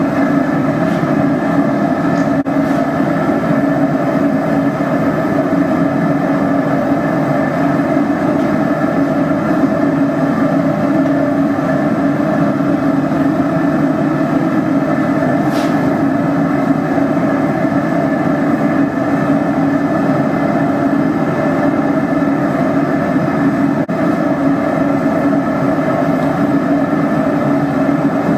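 Forge running with a steady, unbroken rushing noise while iron heats in it.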